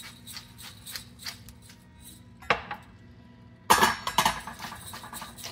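Kitchen clatter: a metal utensil clinking and knocking against pans and dishes, with one sharp knock about two and a half seconds in and a quick run of clinks a little before four seconds.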